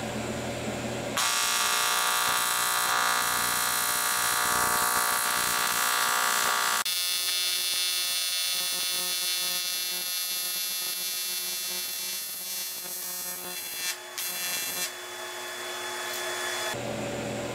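AC TIG welding arc buzzing steadily as a single pass is run along aluminum plate with 1/8-inch filler rod. The arc strikes about a second in, its buzz changes and eases slightly about seven seconds in, and it breaks off briefly before stopping about fifteen seconds in.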